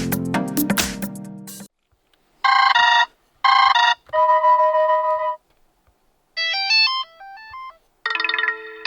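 Default ringtones of a HAFURY G20 smartphone playing one after another, each cut short. A bass-heavy electronic tone stops abruptly, then come two short chiming rings and a held chord, a quick run of beeping notes stepping up and down, and the start of another tone near the end.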